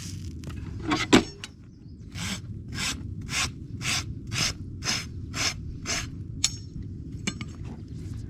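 Farrier's rasp stroked across a horse's hoof, eight even strokes about two a second, after a sharp knock about a second in.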